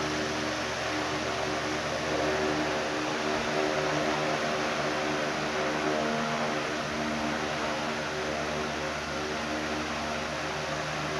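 Venti-Delta Premium 60 cm wall fan running steadily on its freshly rewound motor: an even rush of air from the blades over a steady motor hum.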